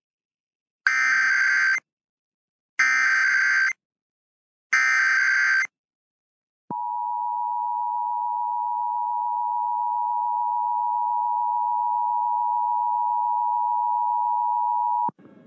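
Emergency Alert System SAME header: three short bursts of buzzing digital data, each about a second long, followed by the steady EAS attention tone held about eight seconds, announcing a broadcast alert test.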